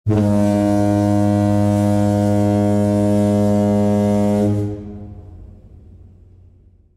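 A motor yacht's horn sounding one long, steady, deep blast of about four and a half seconds, then dying away with an echo.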